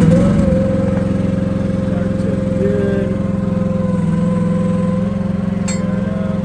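Mini excavator engine running at a steady idle just after starting, its speed settling within the first half second. A faint click near the end.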